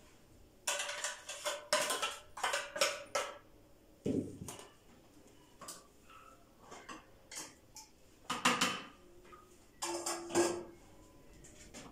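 Metal spoon and kitchen containers clinking, scraping and clattering in irregular bursts as utensils are handled, with a brief ringing clink about ten seconds in.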